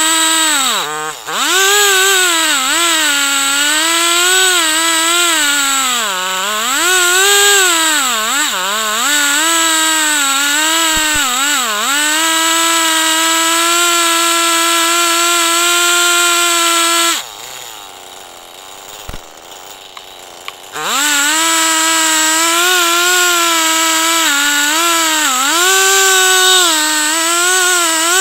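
Two-stroke chainsaw running at high revs while ripping a log lengthwise in a chainsaw mill, its pitch dipping and recovering again and again as the chain loads up in the cut. About seventeen seconds in the engine note drops away for a few seconds, then revs back up and carries on cutting.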